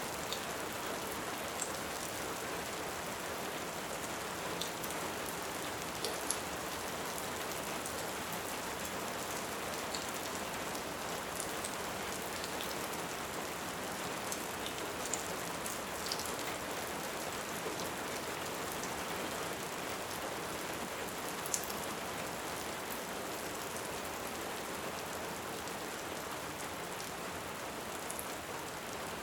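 Steady rain with the sharp pops and crackles of a wood fire scattered through it.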